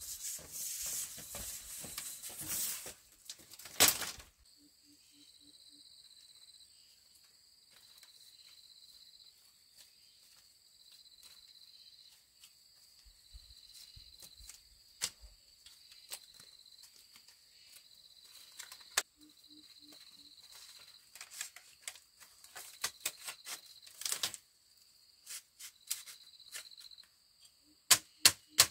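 Insects chirring in a steady high trill that pulses about once a second. Rustling and a sharp knock come in the first few seconds, and scattered taps and clicks come in the later part.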